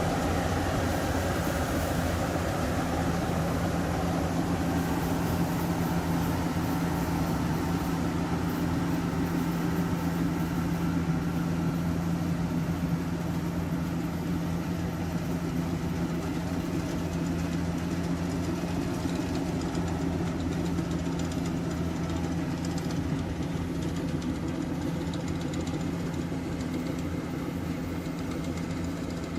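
Rice harvesting machine's engine running steadily, with a constant mechanical hum and clatter.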